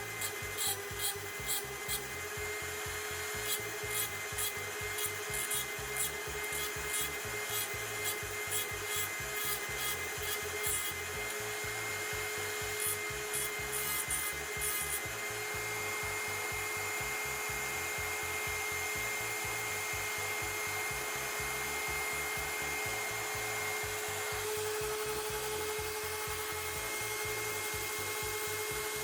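Hand filing or rubbing strokes at the repair of a snapped laptop hinge, about two a second at first, then a steadier scraping, over a constant hum.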